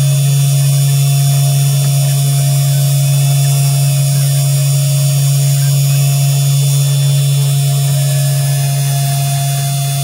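Mini CNC 3018 Pro's 775-type DC spindle motor running steadily at speed while its bit engraves into modelling clay: a loud, even hum with a fixed higher whine.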